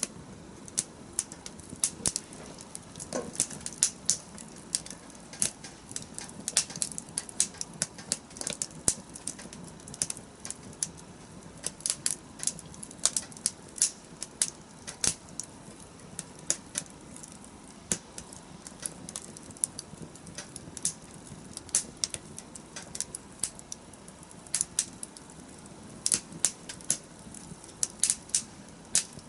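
Wood fire crackling: irregular sharp pops and snaps of burning wood, several a second, over a low steady hiss.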